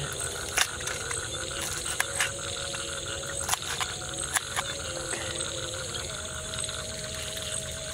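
A kitchen knife ticks and clicks against a metal camping pan as vegetables are cut into it: about six sharp clicks in the first half. Underneath runs a steady, pulsing night chorus of frogs and insects calling.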